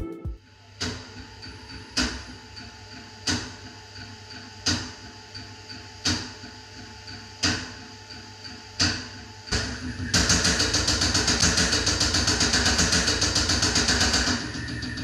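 Caterpillar diesel injector firing on a Stardex test bench. Single sharp spray pops come about every second and a half, then about ten seconds in it switches to a loud, fast run of hissing injection pulses that last around four seconds as it sprays fuel mist. A quieter steady pulsing of the bench continues near the end.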